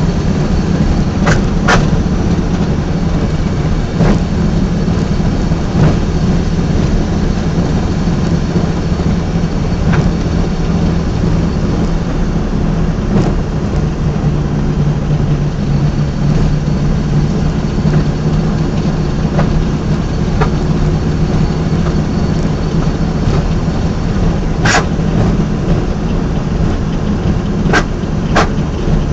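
1983 Subaru Brat's drivetrain noise: a steady low drone, with a few sharp clicks about two seconds in and several more near the end. It is the bad drivetrain noise the owner is trying to show.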